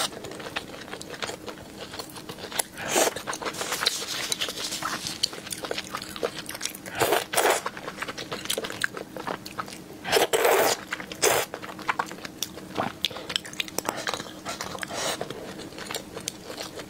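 Close-miked eating: steady wet chewing and mouth clicks, with several louder slurps of noodles, about four of them.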